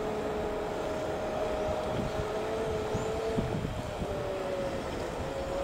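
Jet engines of an approaching widebody Airbus airliner on final approach: a steady low rumble with two steady droning tones that waver slightly in pitch.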